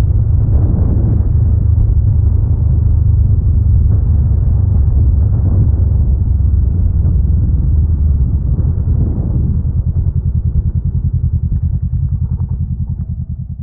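Honda Rebel 500's parallel-twin engine running under way as a low rumble. About ten seconds in, its beat turns into a distinct, even pulsing, and near the end the sound fades out.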